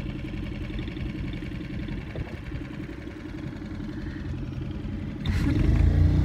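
Small motorboat's petrol engine running steadily with a fast pulsing beat, the boat moving slowly along the canal; it grows louder and rumbles more about five seconds in.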